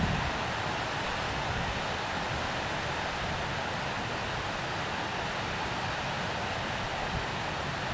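Steady, even rushing of a river's flowing water.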